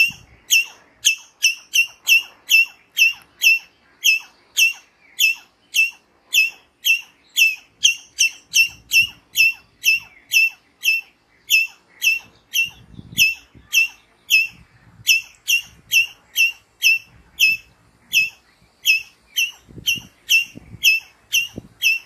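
A palm squirrel calling over and over: short, sharp, high-pitched chips, about three a second, in an even rhythm.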